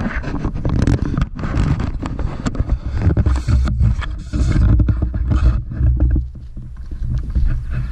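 Wind buffeting the camera's microphone: a loud, gusting low rumble with rough rustle, easing briefly about six seconds in.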